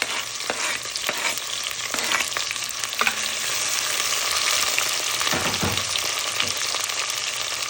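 Chopped onion, garlic, tomato and hot pepper sizzling in hot oil in a pot as they are stirred, with a utensil clicking against the pot several times in the first few seconds and a duller knock a little past halfway.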